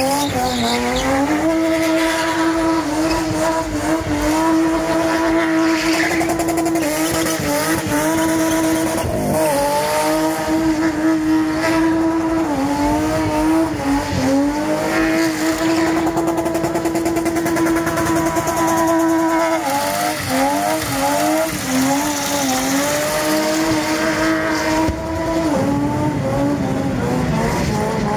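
Car engine revved hard and held at a steady high pitch while the car spins in smoky donuts, its tyres squealing. The engine pitch drops briefly a few times as the throttle lifts, then falls away near the end.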